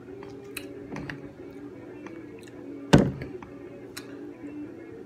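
A single loud thunk about three seconds in, with a few lighter clicks and taps around it, over faint background music.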